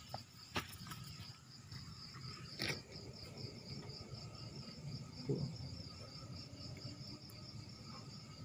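A cricket's high, steady trill, pulsing several times a second. A few soft knocks and rustles of handling come through near the start and in the middle.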